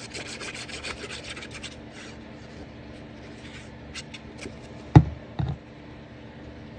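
Nozzle of a squeeze bottle of craft glue scratching and rubbing across a lace-covered card as lines of glue are squeezed out, over the first couple of seconds. About five seconds in, two dull thumps as the card is set down and pressed onto the wooden tag.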